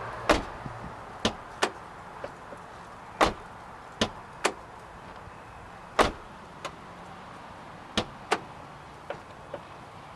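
A Toyota Sequoia's door being worked from inside to test its freshly repaired door handle: a series of sharp clicks and clunks, several in quick pairs, from the handle pulling the latch, the latch releasing and catching, and the lock mechanism.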